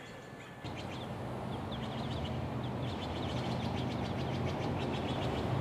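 Small birds chirping in quick short notes over a steady low rumble.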